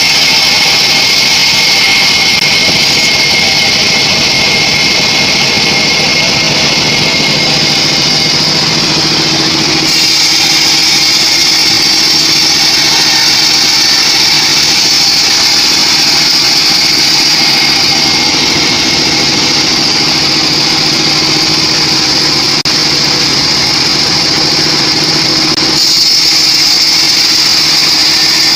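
Homemade band sawmill running steadily and sawing a teak log, a loud machine drone with a strong high hiss from the blade. Its tone shifts about ten seconds in and again near the end.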